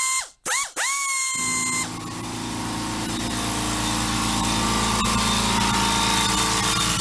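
A pneumatic air tool whines twice in short runs as air is fed to it. About a second in, an air compressor's motor kicks in and runs steadily, refilling the tank.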